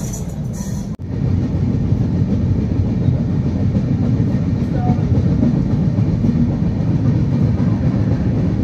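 Steady loud rumble of passenger-train wheels on rails, heard through an open train window at speed as another train's coaches pass close alongside. There is a brief drop about a second in, after which the rumble is louder.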